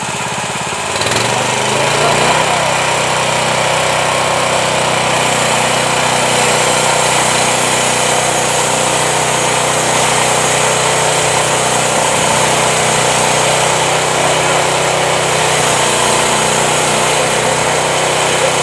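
Small engine of a home-built band sawmill revving up about a second in, then running steadily.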